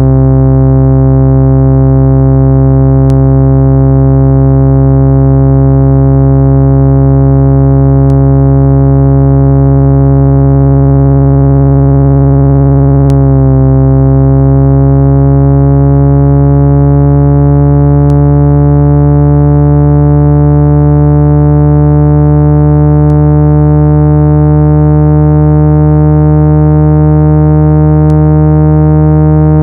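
Loud synthesized speaker-cleaning tone: a low, buzzy, steady tone with many overtones, played to vibrate a phone speaker and push out water and dust. About halfway through it shifts and its upper tones begin to rise slowly in pitch, with a faint click about every five seconds.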